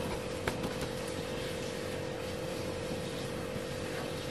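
Golgappa puris deep-frying in hot oil, a steady sizzle, with a slotted spoon clicking lightly against the pan twice about half a second to a second in. A steady hum runs underneath.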